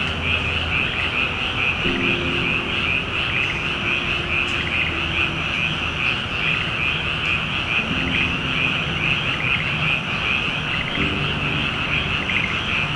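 A dense chorus of calling frogs or insects: a steady, rapidly pulsing high trill.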